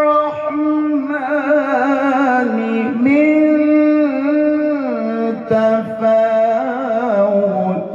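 A man's voice reciting the Quran in the melodic, ornamented tilawah style, amplified through a handheld microphone. He holds long notes decorated with rapid trills and slides, and steps down to a lower note near the end.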